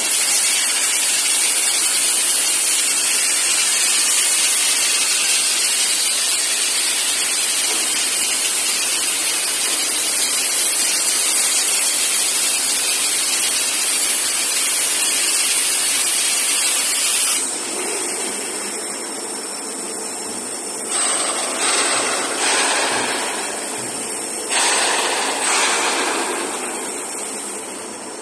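CNC beveling cutting machine's torch cutting with a loud, steady hiss, which drops off suddenly about seventeen seconds in to a quieter hiss with several short surges.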